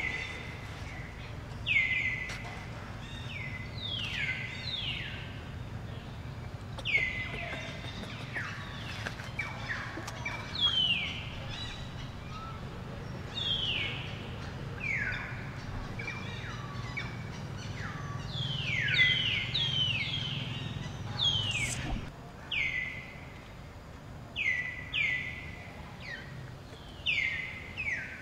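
Shrill animal calls, each sliding down in pitch, repeated many times, sometimes in quick pairs, over a low steady hum.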